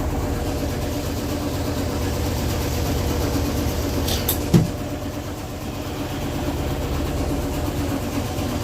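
Maytag MVW6230HW3 top-load washing machine in its spin cycle, spinning fast with a steady hum and low rumble. A single brief knock about halfway through.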